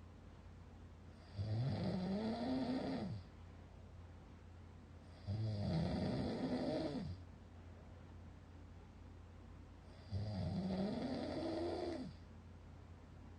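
A sleeping person snoring, recorded by a smartphone sleep-tracking app: three snores, each about two seconds long and about four to five seconds apart, each rising and then falling in pitch. A low steady hum runs between them.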